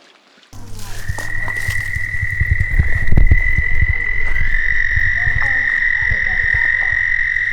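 A toad's long, steady, high-pitched trill, which grows louder and fuller about four seconds in. It sounds over heavy low thumps on the microphone.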